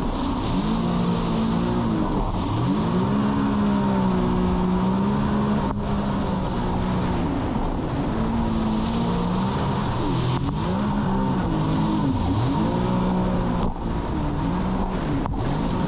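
Jet ski engine running at speed, its pitch rising and falling again and again, over a steady rush of wind and water.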